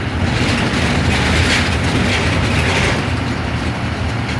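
Steady engine and road noise inside the cabin of a moving transit bus: a constant low rumble under a hiss of tyres and wind.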